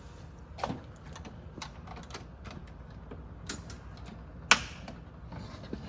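Small metal fasteners being handled: scattered light clicks and taps, with one louder click about four and a half seconds in.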